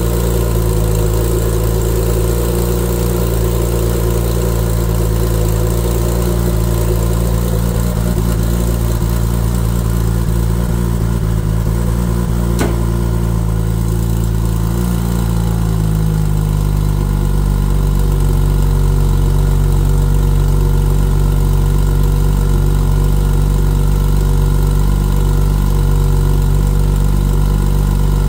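Porsche 996 Turbo's twin-turbo flat-six, built to about 1000 whp on E85 with equal-length headers, idling with a low rumble during the secondary air injection phase of a cold start. A little past halfway the air injection phase fades out and the idle note shifts and settles, slightly louder, into the closed-loop idle.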